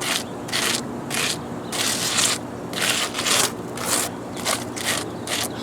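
Gritty scraping and crunching of wet concrete mix being worked with a tool, in repeated strokes about two a second.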